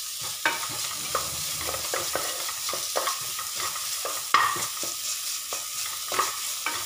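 Sliced onions and ginger-garlic paste sizzling in hot oil in a pressure cooker while a wooden spatula stirs them, scraping and knocking against the pot with irregular strokes. One sharper knock comes about four seconds in.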